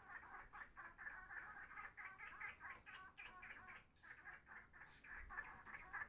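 A small group of birds calling, a faint, steady stream of short chattering notes that thins briefly partway through.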